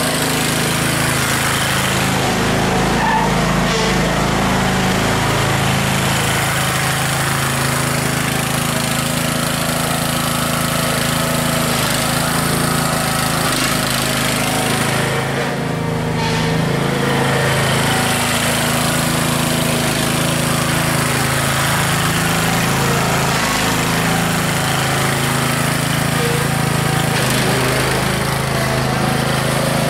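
Craftsman DYT4000 riding lawn tractor's Briggs & Stratton Intek engine running steadily as the tractor is driven around, dipping slightly in level about halfway through.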